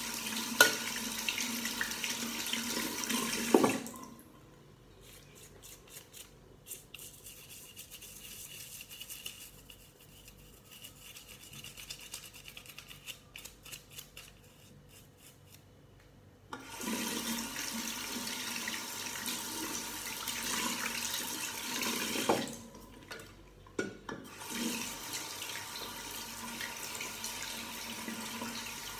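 Tap water running into a sink basin, shut off about four seconds in. Then a toothbrush scrubbing a rubber phone-holder pad, a quiet run of many quick short strokes, until the tap is turned on again, running through the last dozen seconds with one brief break.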